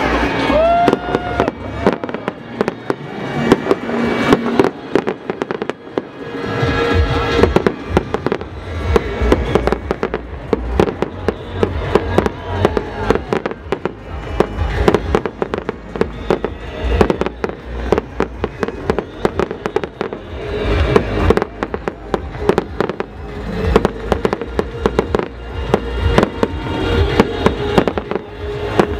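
Fireworks display: aerial shells bursting in rapid, overlapping bangs and crackles, with deep booms coming thick and fast from about six seconds in, over music played at the show.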